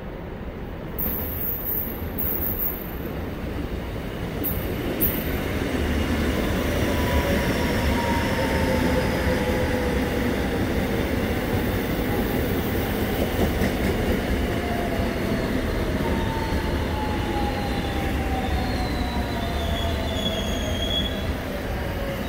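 A Seoul Subway Line 1 electric commuter train runs along the track with a steady rumble that grows louder over the first several seconds and then holds. Over the rumble, several high whining tones glide slowly down in pitch as the train slows alongside the platform.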